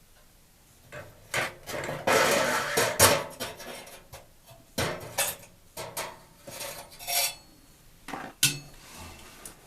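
Irregular metal clinks, scrapes and knocks as a gas water heater's burner and pilot assembly is pulled out of its bracket and handled, with a stretch of scraping about two seconds in and a sharp knock a second later.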